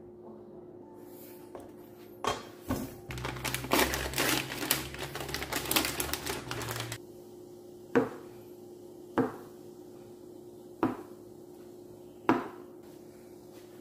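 A plastic packet of fish balls crinkling and tearing for about four seconds as a knife slits it open, followed by four sharp knocks of a knife cutting through fish balls onto a plastic cutting board.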